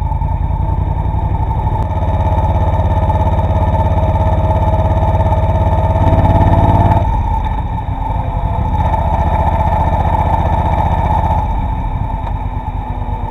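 Motorcycle engine running under way, heard through the dashcam's built-in microphone. The engine note rises over several seconds and drops sharply about seven seconds in, as when the throttle is closed or a gear is changed, then settles at a steady pace.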